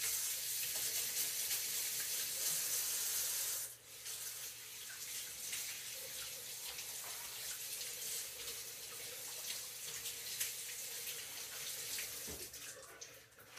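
Kitchen faucet running into a sink while hands are washed under it. The stream runs strongly for nearly four seconds, then more softly, and is turned off near the end.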